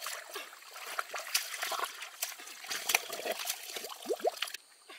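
Shallow water trickling and splashing, with many small irregular splashes over a steady hiss that stops about four and a half seconds in.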